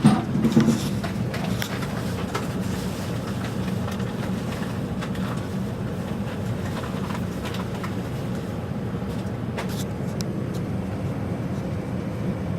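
Steady low rumble of gas water heaters running, with a short knock and clatter in the first second.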